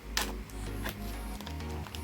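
Background electronic music with a steady, pulsing bass line. A single sharp click or crinkle of handling comes just after the start.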